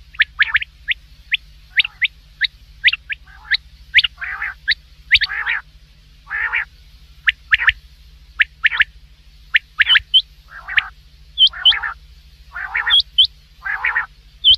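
Common quail calling repeatedly: quick, sharp rising notes, often in pairs or threes, mixed with harsher rasping calls about half a second long.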